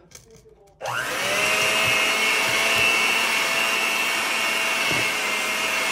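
Electric hand mixer switched on about a second in, its motor spinning up to a steady whine as the beaters churn thick cookie dough in a stainless steel bowl.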